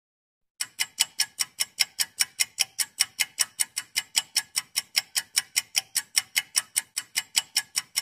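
Clock ticking: sharp, evenly spaced ticks, about five a second, starting about half a second in.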